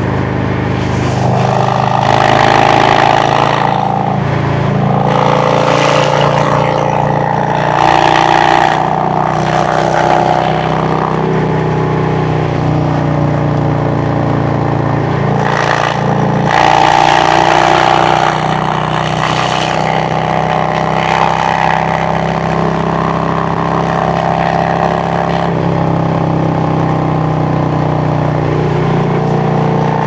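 V-twin exhaust of a 2017 Harley-Davidson Road Glide Special, its Milwaukee-Eight 107 engine, cruising at freeway speed. It swells louder three times as the throttle is rolled on, over a steady rush of wind.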